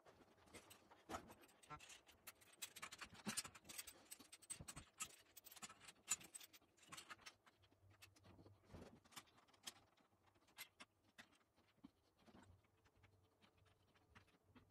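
Faint scattered clicks, taps and scrapes of metal drum hardware being handled and adjusted, busiest in the first half.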